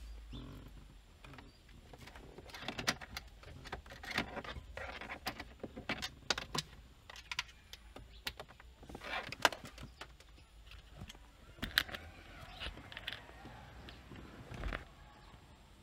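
Irregular plastic clicks, taps and rustling from hands working at the trim under a car's dashboard, with a few sharper clicks standing out.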